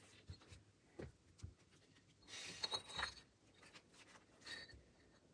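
Near silence broken by faint taps and a short rasping scrape about two and a half seconds in: fieldstone being set and shifted into mortar on a stone chimney.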